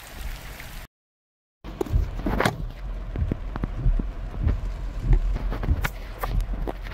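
Storm wind buffeting the phone's microphone, a heavy low rumble scattered with sharp taps and cracks, which may be raindrops striking the phone. The sound cuts out completely for under a second about a second in.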